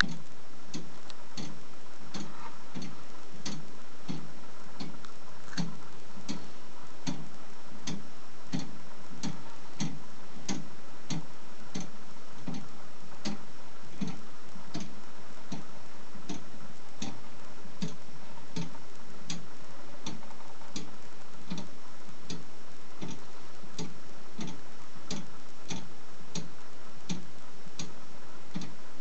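Meccano-built lantern clock ticking steadily, a crisp tick with a soft knock about two to three times a second. Its escapement is driven by a clockwork motor.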